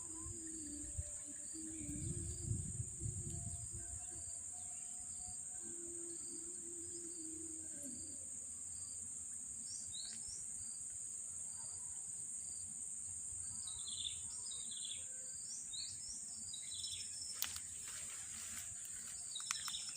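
Riverside ambience: a steady high-pitched insect drone, with several short falling bird chirps in the second half and a brief low rumble about two seconds in.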